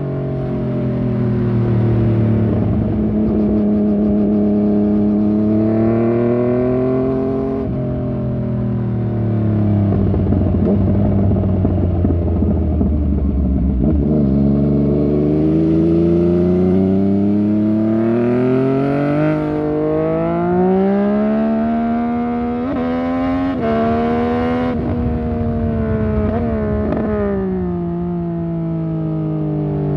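Yamaha MT-09 Tracer's three-cylinder engine through a Fuse Racing aftermarket exhaust, ridden hard: the revs climb and fall repeatedly, with several quick dips from gear changes about two-thirds of the way through, then the pitch falls steadily near the end as the bike slows.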